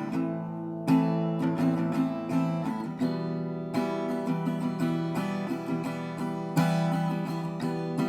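Small carbon-fibre acoustic guitar (Enya Nova Go SP1) played on its own natural sound: chords strummed and left ringing, with a fresh strong strum about a second in, two more around three and four seconds in, and another near the end, and lighter picked notes between.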